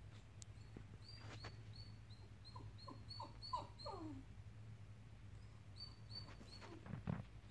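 Dog whining: a quick run of five short whimpers, each sliding down in pitch, a little over two seconds in, over a steady string of faint high chirps.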